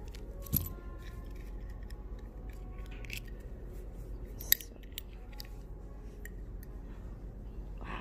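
Small clicks and ticks of a seed-bead cuff bracelet and its clasp being handled and fastened onto a wrist. There is a low thump about half a second in and one sharp click a little after halfway.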